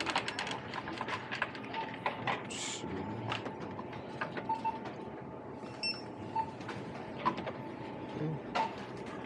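Shopping cart rattling as it is pushed, a run of irregular clicks and clatters from its wheels and frame, over a steady faint hum; a short high tone sounds about six seconds in.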